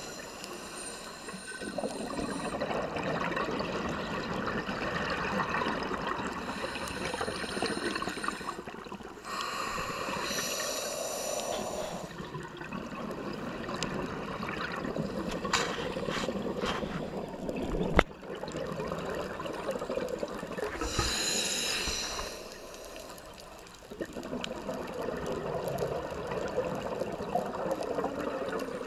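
Scuba diver breathing through a regulator underwater: short hissing inhalations about ten seconds apart, each followed by a longer stretch of bubbling exhalation. A single sharp click about 18 seconds in.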